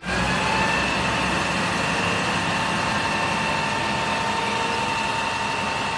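Isuzu FVZ water tanker truck's diesel engine running steadily while its roof water cannon sprays, an even rushing noise with a steady high whine over it.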